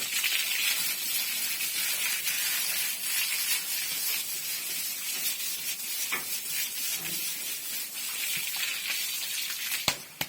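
Water spraying with a steady hiss, typical of a fogger or spray line in a pig shed. A sharp click comes near the end, and the hiss drops away after it.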